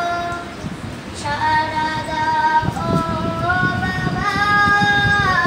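A girl singing a Bengali gojol (Islamic devotional song) solo and unaccompanied, on long held notes. There is a short breath pause about a second in, then one long phrase that steps upward in pitch.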